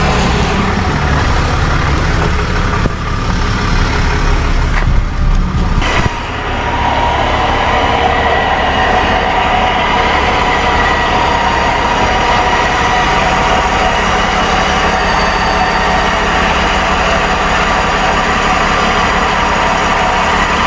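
Background music for about the first six seconds. It cuts off abruptly, and then a truck engine runs steadily with a high, even whine over it, heard during a winch recovery.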